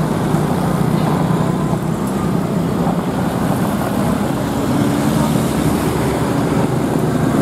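Diesel engine of a Volvo FMX heavy-haul truck running steadily as it moves slowly pulling a heavy trailer, mixed with motor scooters passing close by.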